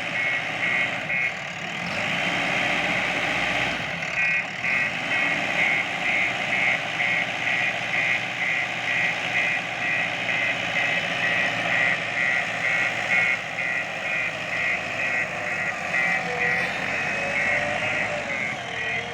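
A reversing alarm beeps steadily about twice a second over a diesel engine running, with a short pause in the beeping about two seconds in.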